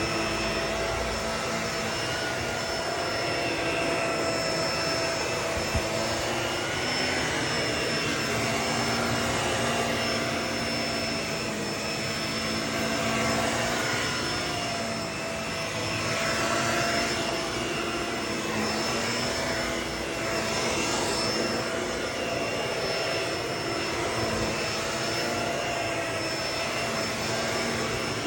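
Vacuum cleaner running steadily with a constant motor whine, the rush of air swelling and fading every few seconds.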